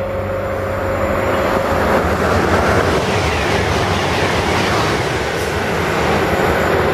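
TGV high-speed train passing at speed: a loud rush of wheels on rail and air that builds over the first two seconds, then holds steady.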